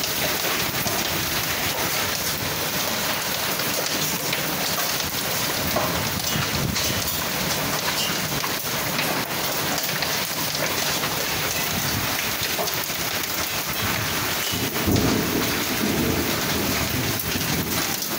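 Heavy rain mixed with small hail pelting down: a steady hiss dotted with many sharp ticks of hailstones striking the concrete and other surfaces. A low rumble of thunder comes in near the end.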